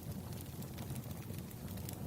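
Crackling wood fire: a steady low rumble with a few faint pops.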